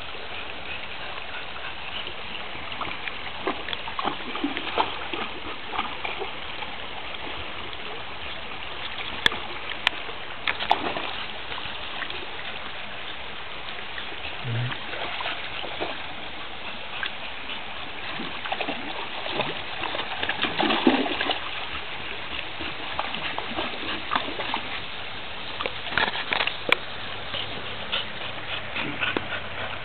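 Shallow creek water running steadily over rock, with repeated splashing and sloshing as a dog wades through it, busiest about two-thirds of the way in.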